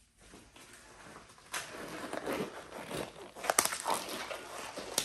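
Close rustling of nitrile gloves being pulled onto the hands, with a couple of sharp snaps, the loudest about three and a half seconds in and another near the end.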